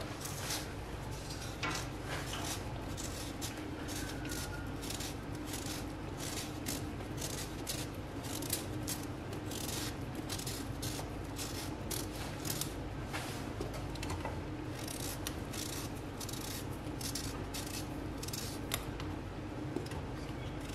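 Kitchen knife shaving the skin off a bottle gourd: a long run of short scraping strokes, one after another.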